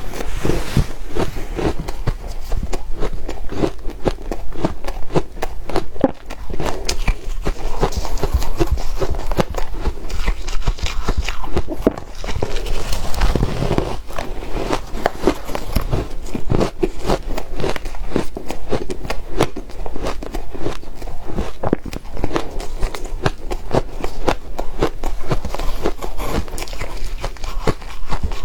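Soft, powdery freezer ice being bitten and chewed close to the microphone: a continuous run of rapid, crisp crunches and crackles.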